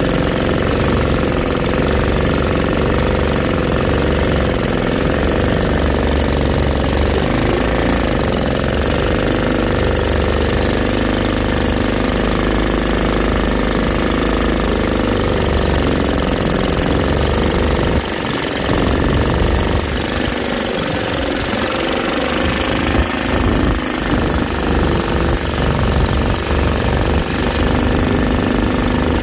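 Worn-out 5 hp Honda GX160 single-cylinder engine on a Mud Skipper Twister mud motor, running steadily under load as it pushes a jon boat. The level dips slightly about two-thirds of the way through, and the sound is a little less even after that.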